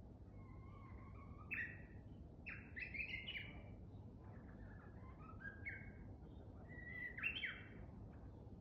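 Japanese bush warbler (uguisu) singing: several whistled song phrases, each a drawn-out note that breaks into a quick rising flourish, the ho-hokekyo song of the species.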